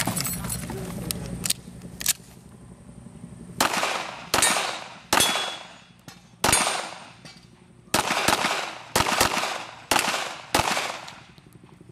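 Pistol shots in a timed practical-shooting course of fire: a few light knocks in the first two seconds, then nine sharp shots starting about three and a half seconds in, spaced roughly half a second to a second and a half apart, each followed by a short echoing tail.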